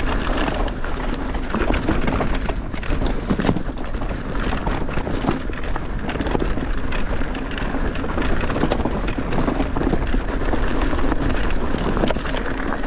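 Mountain bike tyres rolling fast over a leaf-covered dirt trail, with the bike rattling and knocking over bumps and a steady low rumble of wind on the microphone.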